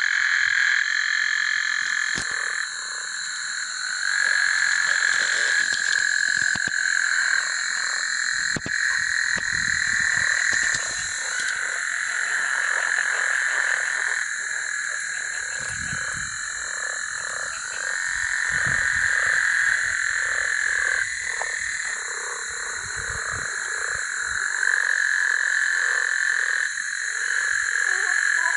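A dense chorus of frogs calling, a steady, unbroken din of overlapping calls with many quick pulsed calls repeating beneath it.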